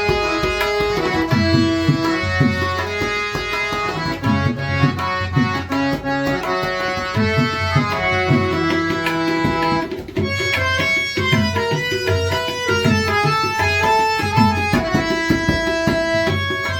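Scale-changer harmonium playing a melody over tabla accompaniment. About ten seconds in, the harmonium moves to quicker, higher notes while the tabla keeps time.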